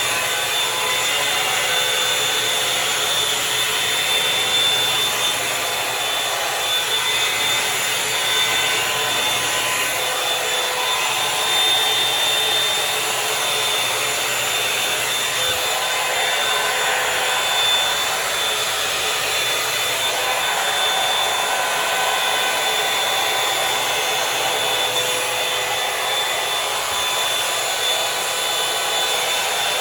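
Revlon One Step Volumizer hot-air brush dryer running steadily: a constant rush of air with a steady high fan whine.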